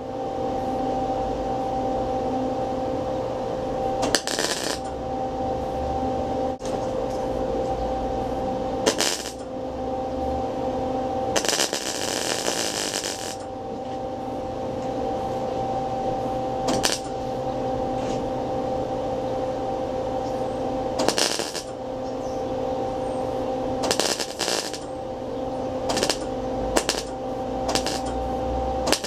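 MIG welder laying short tack welds on thin-gauge sheet steel: the arc crackles in about nine separate bursts, most under a second and one about two seconds long, as the trigger is eased on and off to fill a hole without burning through. A steady machine hum runs underneath.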